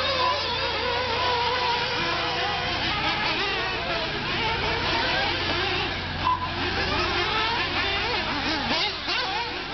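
A pack of 1/8-scale nitro RC buggies racing, their small glow engines buzzing and revving up and down over one another, with a steady low hum underneath.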